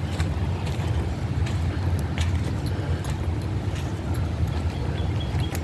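Steady low rumble of wind buffeting the microphone, with a few faint clicks above it.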